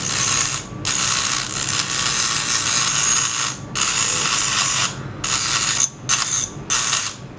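Handheld mini rotary tool with a small abrasive bit grinding against a small part of a 12 V DC submersible water pump, cleaning it. A high, hissing grind comes in six bursts of half a second to two and a half seconds, broken by short gaps.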